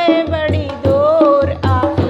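A woman singing a Hindi folk wedding song (banna geet), the melody gliding between held notes, over a steady hand-drum beat.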